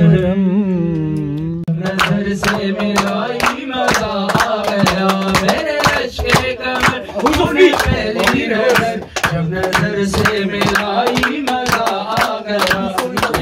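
A man singing into a microphone, bending and wavering long held notes at first; from about two seconds in, steady rhythmic hand clapping joins the singing.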